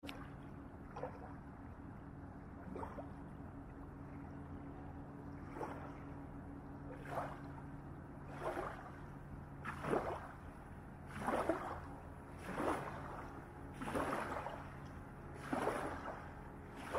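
Small waves lapping and splashing onto a sandy riverbank, a wash every second or two that grows stronger in the second half. Under them a steady low hum of a distant boat engine, which fades out about fifteen seconds in.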